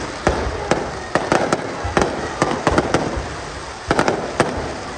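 Fireworks display going off: a rapid, irregular string of sharp bangs and crackles, several a second, over a continuous rumble of further bursts.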